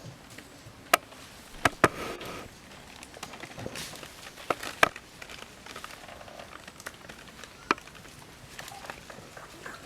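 Rustling with about six sharp snaps or cracks scattered through it, the loudest close together near the start and the middle.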